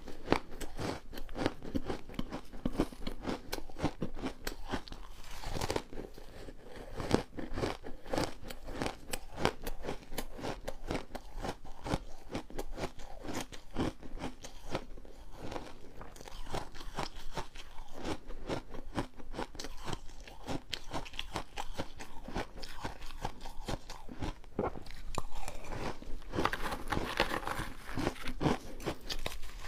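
Refrozen ice being bitten and chewed, a dense run of irregular crunches several times a second, louder for a couple of seconds near the end.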